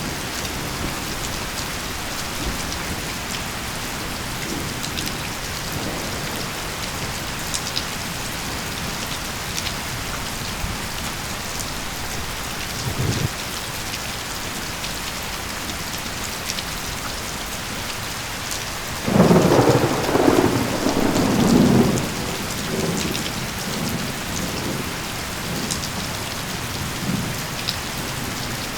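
Steady rain falling, with a sudden clap of thunder about two-thirds of the way through that rumbles on for about three seconds.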